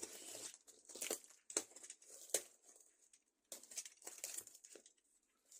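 Courier parcel packaging being handled and opened by hand: plastic and paper crinkling and rustling in irregular bursts, with a few sharp crackles.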